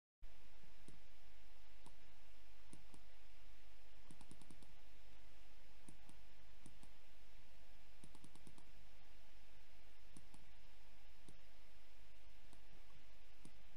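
Computer mouse clicking, single clicks and quick runs of four or five, over a steady low hum and hiss.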